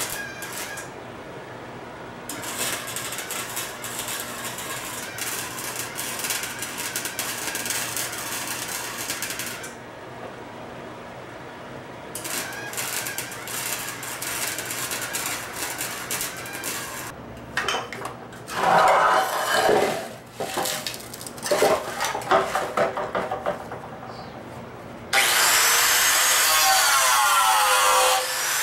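Angle grinder with a cutoff wheel cutting through old, holed steel exhaust pipe in several bursts, then, from near the end, a steady loud cut into a steel muffler with the wheel's pitch wavering under load.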